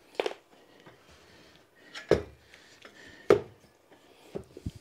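Parts of a bicycle repair stand being handled during assembly: a few sharp knocks and clunks, the loudest about two and three seconds in, with light rubbing and handling noise between them.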